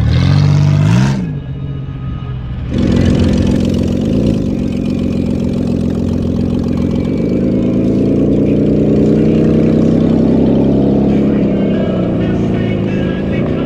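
A demolition derby car's engine running loud, blipped up in revs and back down twice, about a second in and again about four seconds in, then running steadily.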